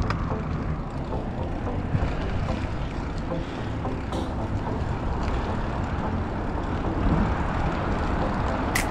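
Wind rumbling steadily on the microphone of a camera riding on a moving bicycle, with a sharp click near the end.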